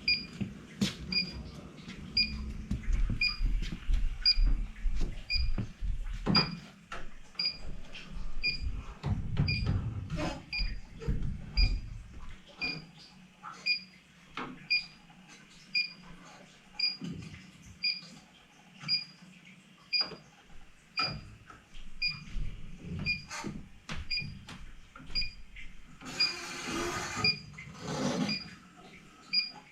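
Electronic refrigerant leak detector ticking at an even rate of about two ticks a second, mixed with scattered clicks and knocks from handling tools and panels. A brief hiss comes near the end.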